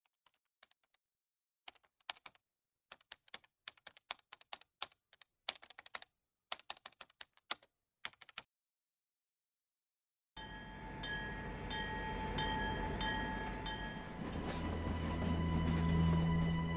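Irregular clicks of typing keystrokes for about eight seconds, then, after a short silence, a train running steadily, its low hum growing stronger near the end.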